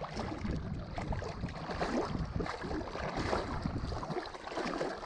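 Wind rumbling on the microphone over water sloshing and lapping, irregular and without any steady tone.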